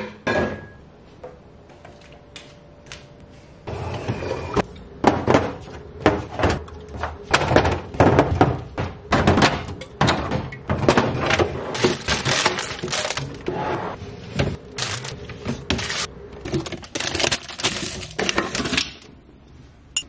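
Glass bottles, jars and cans clinking and knocking against refrigerator shelves and each other as they are taken out and set down. A few knocks at first, then from about four seconds in a quick, busy string of clinks and thuds over a faint steady hum.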